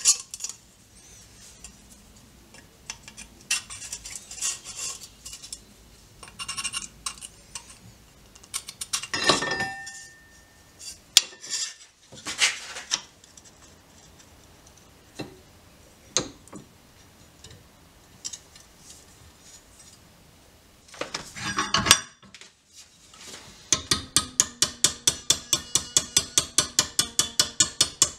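Scrap steel plate and hand tools handled on a workbench and in a vise: scattered clinks, scrapes and knocks. Near the end a hammer starts beating a thin steel plate clamped in a bench vise between angle iron, rapid even blows about four a second with a metallic ring.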